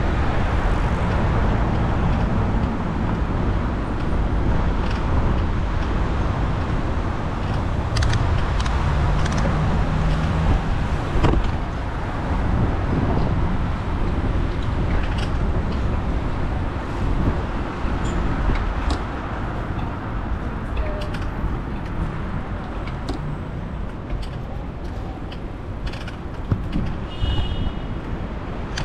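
City street noise heard from a moving bicycle: a steady low rumble of wind and road under passing traffic, with scattered sharp clicks and rattles. A brief high ring sounds near the end.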